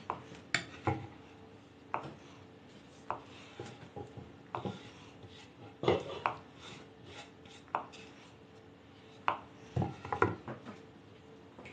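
Kitchen knife chopping boiled egg on a wooden cutting board, in irregular taps. About six seconds in there is a louder clatter of a wooden board knocking against a steel pot.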